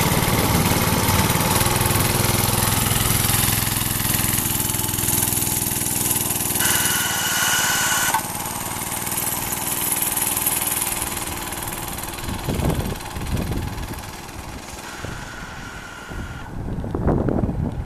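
Homemade mini bike's 5 hp small engine running and pulling away, growing steadily fainter as the bike rides off down the road. Wind buffets the microphone in gusts in the second half.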